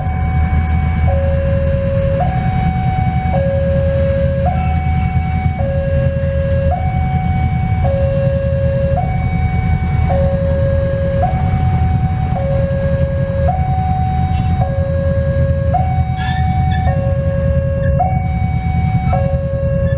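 Two-tone electronic warning alarm, alternating a higher and a lower tone about every second, sounding as a train approaches, over the steady low rumble of diesel trains.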